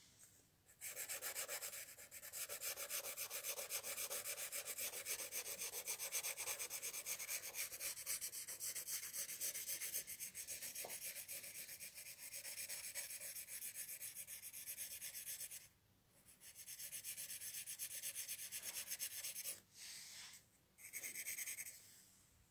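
Dry rubbing and scratching right against the microphone, a hand working close by, in one long stretch of about fifteen seconds, then a short break and two shorter stretches near the end.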